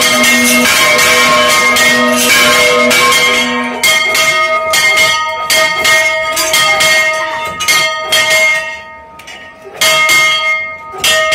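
Church bells swung full circle (volteo), their clappers striking in quick succession while the bells ring on. A little under four seconds in the deepest tone stops; the remaining strikes then come further apart and fainter.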